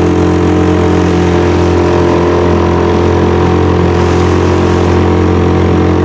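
A small boat's motor running at a steady speed, an even drone with no change in pitch.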